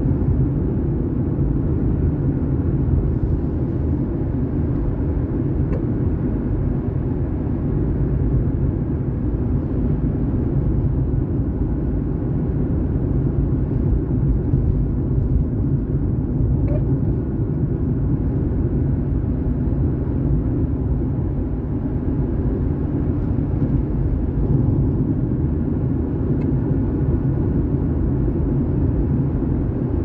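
Steady low rumble of a car's road and engine noise inside the cabin.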